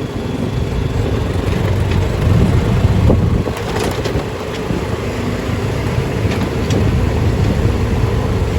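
Golf cart rolling along a road: steady low rumble of the cart and its tyres, with a few light knocks or rattles about three to four seconds in.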